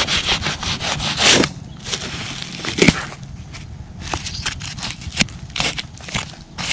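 A hand brushing and scratching away dry, loose soil in quick rasping strokes. After a quieter stretch, short sharp scrapes come close together in the last few seconds.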